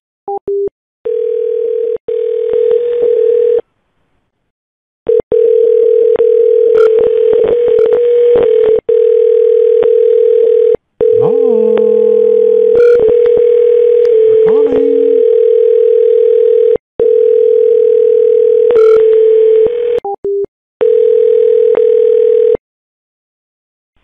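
Telephone dial tone: a loud, steady single-pitched tone broken by several short gaps, with scattered clicks over it and a brief gliding pitched sound about halfway through.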